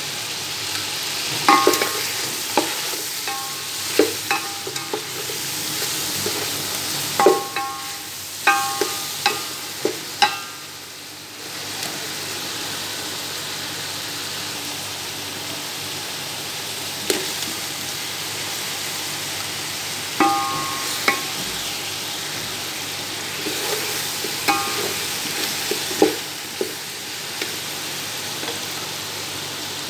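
Chicken sizzling in hot oil in a large metal pot, stirred with a metal spoon that clanks against the pot, each strike ringing briefly. The clanks come in clusters, with stretches of plain steady sizzling between them.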